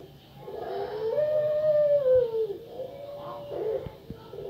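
Puter pelung hen, a long-cooing ringneck (Barbary) dove, giving a long drawn-out coo that starts low, rises to a held note for over a second and then falls away, followed by a few shorter low coo notes near the end.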